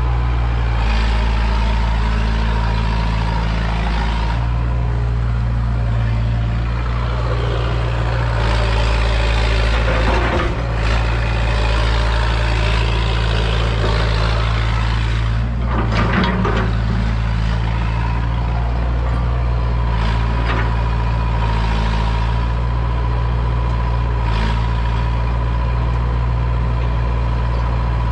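Hitachi EX100 excavator's diesel engine running steadily, with a thin steady whine above it. A few short cracks come about a third of the way in and again just past the middle.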